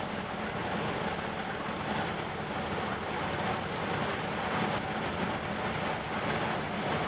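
A ferry's engines hum steadily under the rush of its wake on the water, with wind on the deck.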